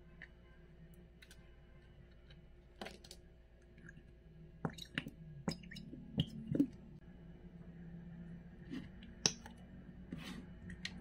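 Plastic glue bottles being handled: caps clicking and white glue squeezed from a plastic squeeze bottle into a plastic bowl, heard as a scatter of sharp clicks and small squelches, busiest in the middle, over a faint steady hum.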